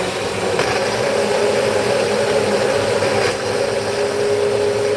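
Single-serve personal blender running, held pressed down on its base, blending a thick sea moss smoothie with a little ice. It starts abruptly and runs with a steady motor hum over a grinding wash, the hum dropping slightly in pitch about three seconds in as the mix thickens.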